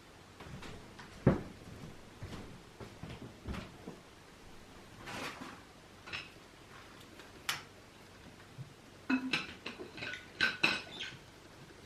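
Cutlery and dishes knocking and clinking during a meal: scattered soft knocks, then a quick run of ringing clinks near the end.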